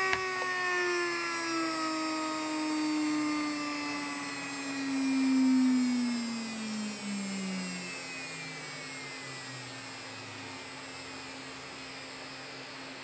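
Small electric motor on a DCC decoder tester spinning down: its whine falls steadily in pitch and fades away over about ten seconds as the decoder's default momentum brings it gradually to a stop.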